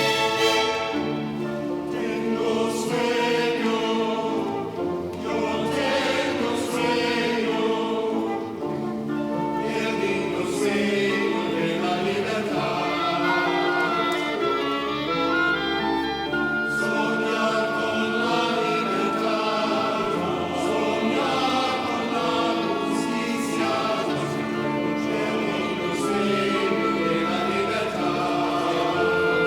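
A choir singing with an orchestra accompanying, in long held chords that move every second or so.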